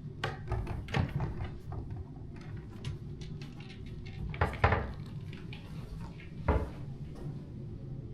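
A run of clicks and knocks, like doors and objects being handled, with louder thumps about four and a half and six and a half seconds in, over a steady low hum.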